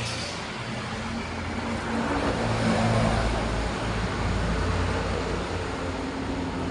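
A motor vehicle's engine running with road noise, swelling about two to three seconds in.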